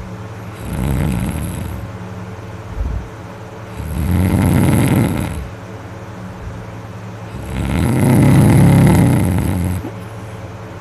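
A man snoring loudly in deep sleep: three heavy snores about three and a half seconds apart, each longer and louder than the one before. A steady low hum runs underneath.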